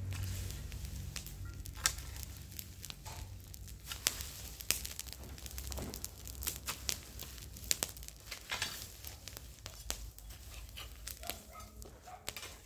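Backyard ambience: scattered, irregular crackles and clicks over a steady low hum.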